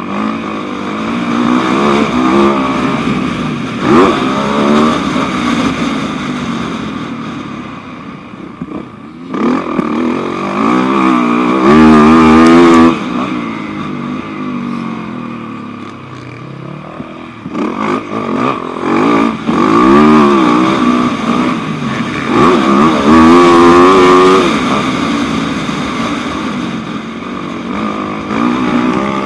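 Dirt bike engine revving hard, then backing off, over and over as the bike accelerates down the straights and shuts off into the corners; the pitch climbs and falls with each opening of the throttle. It is heard close up from a camera on the bike.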